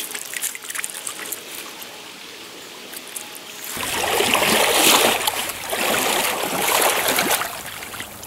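Trout stream water running, then louder splashing in the water from about four seconds in, lasting about four seconds.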